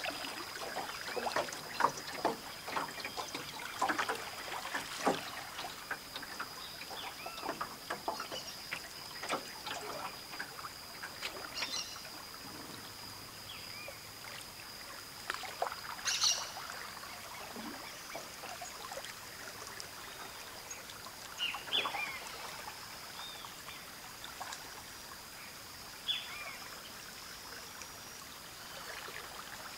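Paddle strokes through river water: repeated dips, splashes and drips, more frequent in the first part, with birds calling quietly now and then and a steady high-pitched tone.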